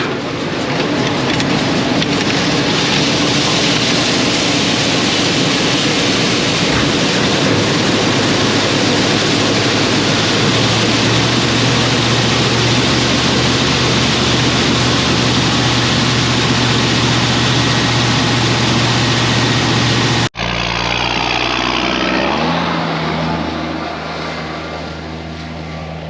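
Farm machinery running: a loud steady rush over a low engine hum. After a sudden cut about twenty seconds in, a quieter engine runs with its pitch stepping up.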